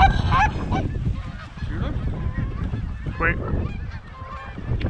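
Canada geese honking in scattered short calls, with strong wind rumbling on the microphone.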